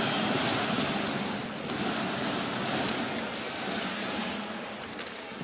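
Ice hockey arena ambience on the broadcast feed: a steady crowd noise, with a couple of sharp clicks.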